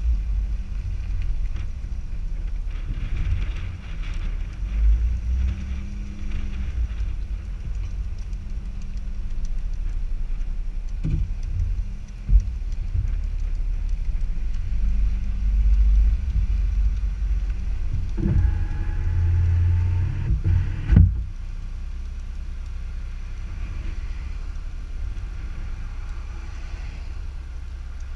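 Car rolling slowly, heard as a low, wavering rumble of engine and tyres through a camera mounted outside on the car's body, with a few sharp knocks, the loudest about three-quarters through. After that the rumble settles to a steadier, quieter level as the car comes to a stop.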